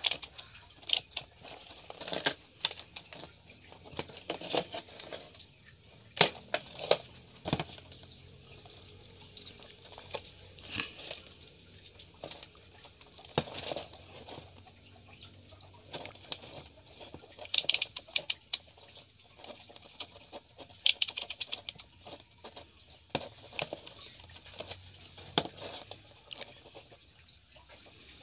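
Irregular clicks and taps from handling a DT-832 digital multimeter, with its rotary selector dial clicking through positions. Twice there is a quick run of rapid clicks.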